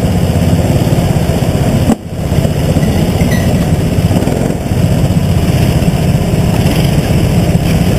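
Rental go-kart engine running steadily at low speed, heard close up from the kart itself, with other karts' engines around it. The sound briefly dips about two seconds in.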